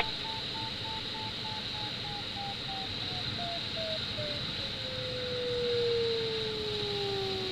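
Glider's audio variometer: a string of short beeps slowly falling in pitch, then from about five seconds in a continuous tone gliding lower, the sign that the climb is fading into sink. A steady hiss runs underneath.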